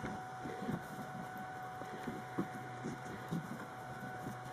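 Soft scattered rubs and light knocks of a Singer steam iron being pushed over cotton fabric on an ironing board, with the fabric handled and rustled near the end, over a faint steady hum.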